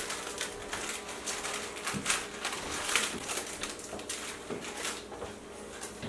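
Plastic zip bag crinkling in uneven bursts as it is squeezed and shaken to work powder out through a small hole in it.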